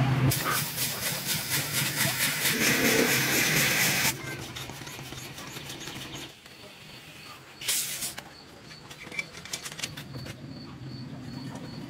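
A hand floor pump inflating a child's mini motorcycle tyre, with air hissing. The hiss is loud for about the first four seconds, then drops away, and a short hiss comes again about eight seconds in.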